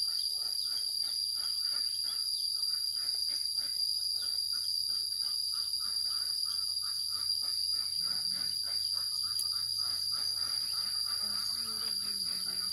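Insect chorus of crickets or cicadas: a steady high-pitched drone over rapid, evenly repeating chirps.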